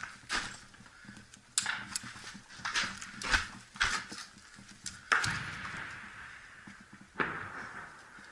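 Gunfire in close combat: irregular single sharp shots over the first four seconds, then two louder bangs about five and seven seconds in, each trailing off slowly.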